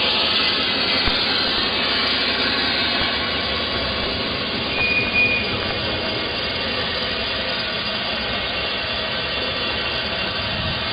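FIAT 7131 diesel railcar running steadily, with a brief high squeal about five seconds in.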